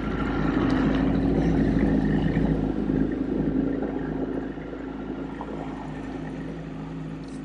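Boat's outboard motor running at low, no-wake speed with a steady hum over water and wind noise. It swells in the first second, then slowly eases off.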